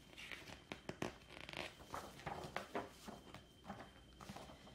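Faint rustling of paper pages and light clicks as a picture book is handled and its pages are turned, in several short, irregular bursts.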